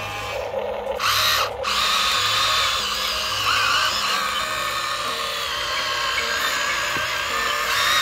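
A toy's small electric motor whirring at a high pitch, cutting out briefly about a second and a half in, with background music playing under it.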